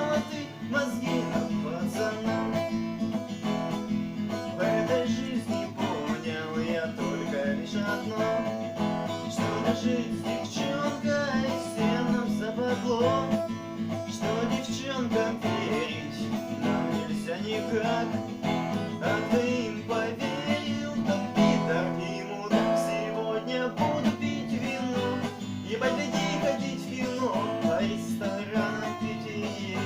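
Acoustic guitar playing an instrumental passage of the song, with no singing.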